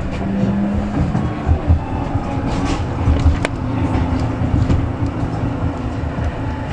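Tram running along its track, heard from inside the car: a continuous low rumble with irregular wheel thumps. A steady hum in the first second gives way to a slightly higher one from about two to five seconds in, and a sharp click comes about three and a half seconds in.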